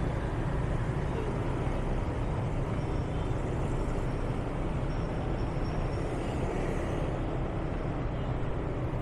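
Steady low rumble of vehicle and traffic noise, heard while travelling along a city street.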